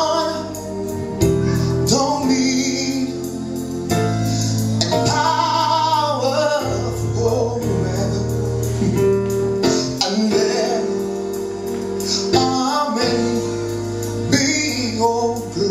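Gospel worship song: voices singing over a band, with held bass notes that change every second or two.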